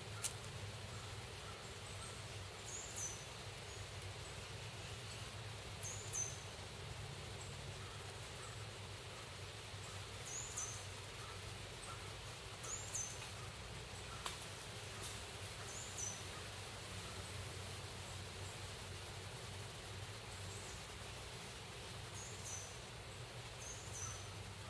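Outdoor ambience: a steady low background noise with short, high bird chirps every few seconds and an occasional faint click.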